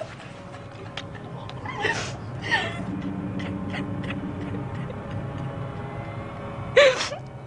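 A man's short gagging moans, about two seconds in, again just after, and once more near the end, as a slug-like parasite slides about in his mouth. A low steady hum lies underneath.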